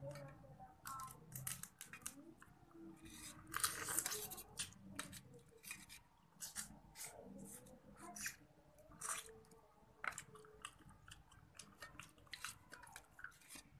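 Close eating sounds of crab eaten by hand: irregular sharp clicks and cracks of crab shell being pulled apart and picked at, with chewing and lip smacks. A longer, louder crackle comes about four seconds in.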